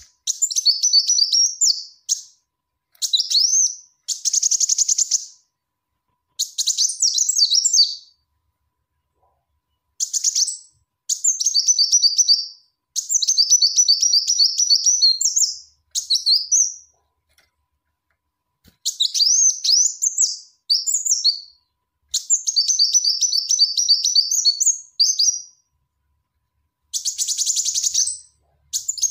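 Female Kolibri Wulung sunbird calling: rapid, high-pitched twittering phrases of one to three seconds each, repeated over and over with short pauses between them. It is the female's call to the male, used as a lure call.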